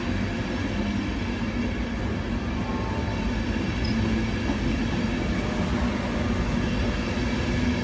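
Mark 4 passenger coaches of an electric InterCity 225 train rolling past close to the platform: a steady rumble of wheels on rail with a low hum underneath.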